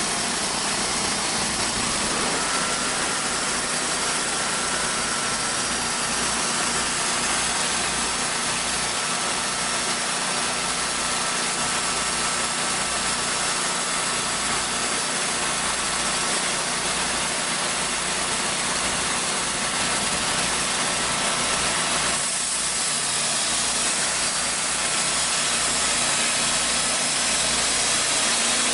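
Gas engine of a TimberKing portable sawmill running steadily under a dense hiss, with a faint thin whine coming in a couple of seconds in.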